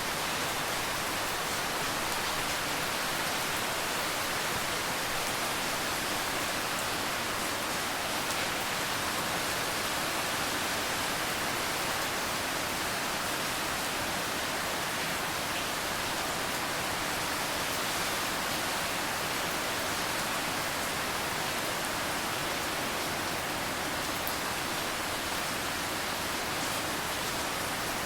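Steady, even rain falling, a constant hiss with faint scattered drop ticks.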